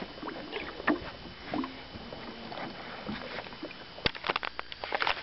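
Handling noise in a small fishing boat: scattered knocks and clicks, with a sharp knock about four seconds in followed by a quick run of clicks.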